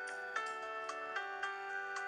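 Background music: a light melody of short pitched notes, struck about two a second.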